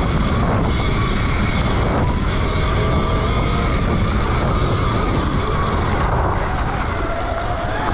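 Sur-Ron Light Bee electric dirt bike riding, its electric motor giving a faint whine that rises and falls with speed and drops lower near the end, under heavy wind rush and tyre rumble on the rider-mounted microphone.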